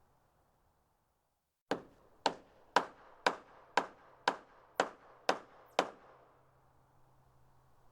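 A hammer striking wood nine times in an even rhythm, about two blows a second, each a sharp knock.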